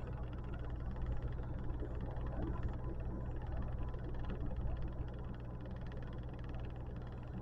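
Steady low background hum, with no distinct knocks or clicks.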